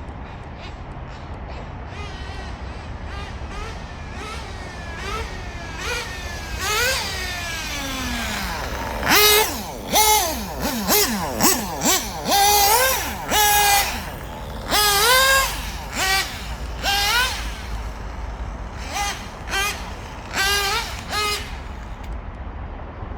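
Small nitro RC car engine revving in repeated throttle bursts, its pitch sweeping up and down as the car is driven. It runs strongly under throttle but will not hold an idle, which the owner puts down to a failing turbo glow plug.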